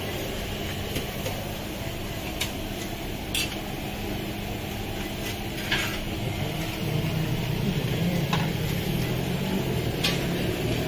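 Serving spoons and dishes clinking at a food counter: a few short, sharp clinks now and then over a steady background hum.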